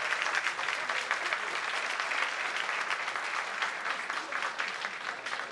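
Audience applauding: many hands clapping together in a dense patter that eases off slightly near the end.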